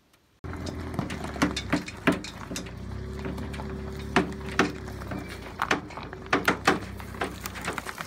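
A small motor running steadily, with irregular knocks and clatter over it. It starts suddenly about half a second in.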